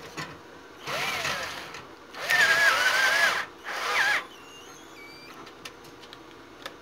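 Power drill run in three short bursts, its motor whine wavering in pitch as it bites into the sheet metal of the stove door; the middle burst is the longest and loudest. A few light metallic ticks follow.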